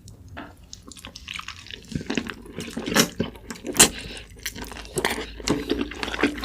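Close-up wet chewing and lip-smacking of someone eating rotisserie chicken, a string of irregular moist clicks and smacks that grows busier about two seconds in.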